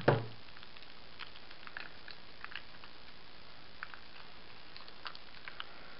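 A knock on a wooden table at the start, then faint, scattered clicks and taps as hands handle a small cardboard box and plastic phone parts, over a steady low hiss.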